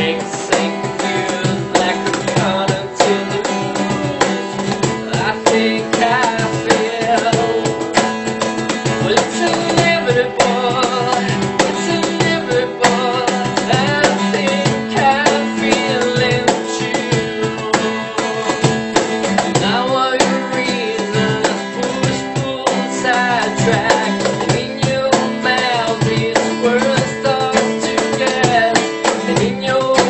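Acoustic guitar strummed alongside a cajón slapped with the hands, with a man singing over them: a live acoustic song with a steady beat.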